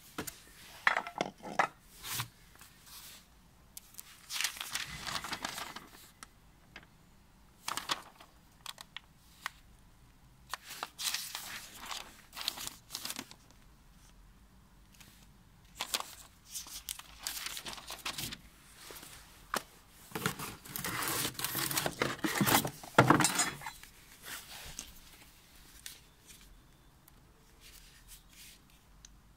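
Rustling and crinkling of paper and cardboard packaging in irregular bursts, with scattered clicks and knocks as the parts of a new angle grinder are handled. The longest, loudest stretch of rustling comes about two-thirds of the way through.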